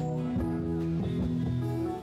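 Instrumental church music with guitar, held notes and chords changing every half second or so.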